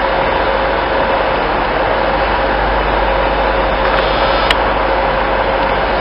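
Steady hum of an electric multiple-unit train standing at the platform, with a constant whine over its running noise. One sharp click comes about four and a half seconds in.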